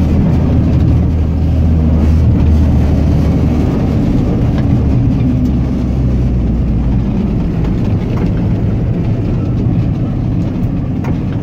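Engine and road noise of an old 4x4 heard from inside its cabin while driving: a steady low drone that eases a little about seven seconds in.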